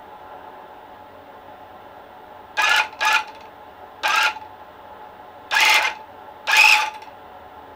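Electric cut-pile rug tufting gun running in five short bursts of under half a second each, a buzzing motor whine with the needle and cutter clattering, triggered on and off against the monk's cloth.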